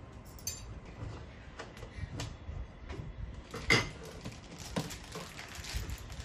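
Hands handling the back of a plastic computer monitor lying on a desk: a scatter of small clicks and knocks, with one sharper click about three and a half seconds in.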